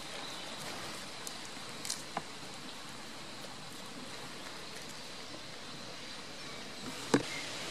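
Steady outdoor background hiss, with a couple of small clicks and one sharp knock about seven seconds in.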